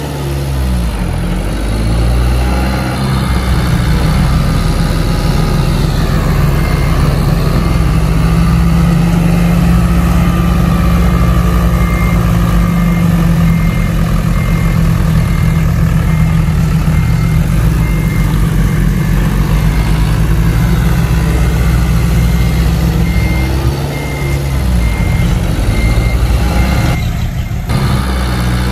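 Heavy diesel engine of earthmoving machinery running loudly, its revs swelling and easing as it works. A faint high beeping, about twice a second, runs under it through most of the stretch.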